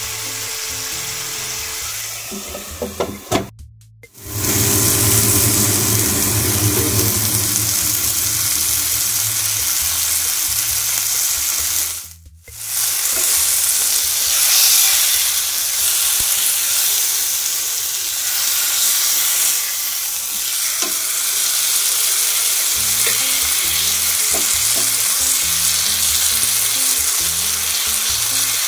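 Pomfret fish frying in butter in a pan, a steady sizzle. It drops out for two brief silences, about four and twelve seconds in.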